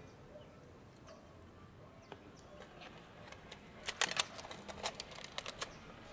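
Plastic bag crackling as it is handled, a cluster of sharp crackles starting about four seconds in and lasting under two seconds.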